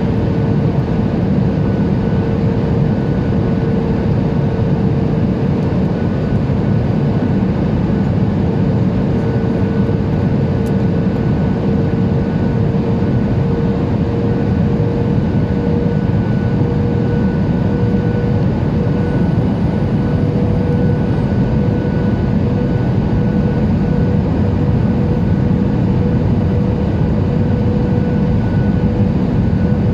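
Steady cabin noise of a Boeing 737-800 in flight: a constant rush of airflow with the drone of its CFM56-7B jet engines and a steady hum that creeps up very slightly in pitch.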